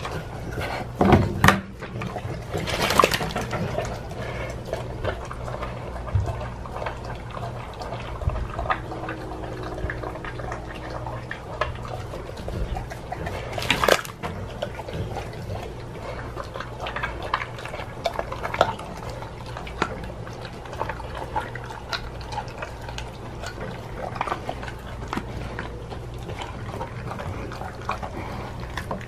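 A pit bull mix chewing and licking a piece of raw pork skin: wet, irregular smacking and crackling chews, with a few louder bites about a second in, around three seconds and around fourteen seconds.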